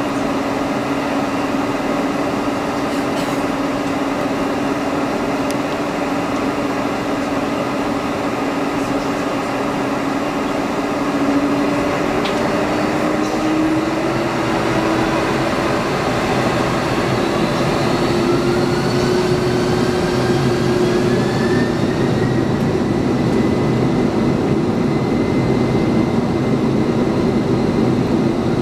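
Boeing 747-400's turbofan engines heard from inside the cabin while taxiing: a steady hum and whine. Its pitch rises a little about halfway through as the engines spool up.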